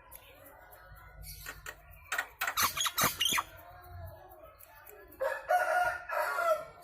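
Jalak nias starling calling loudly: a quick string of sharp, clipped calls, then a single harsh, buzzy call held for over a second.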